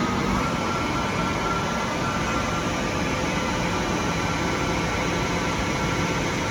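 Harrison Alpha 400T CNC lathe running: a steady mechanical hum and rush with a thin, high whine over it.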